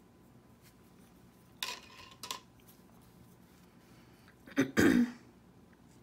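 A person clears their throat with a short, double cough-like sound near the end. Before it come two brief, light clatters.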